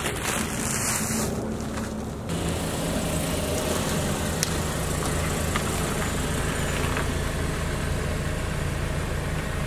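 A car's engine running at low speed as the car creeps into position. A steady low hum sets in about two seconds in.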